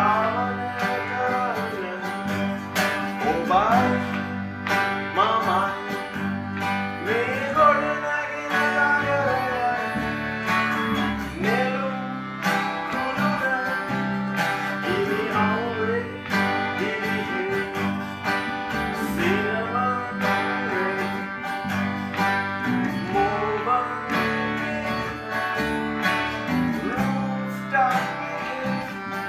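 Live acoustic band: a strummed acoustic guitar over held bass and harmonium tones, with a male voice singing a sliding melody.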